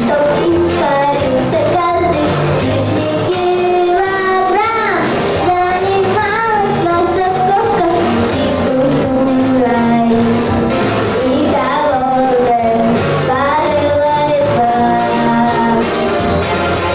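A girl singing a Russian children's pop song over a backing track with a steady beat.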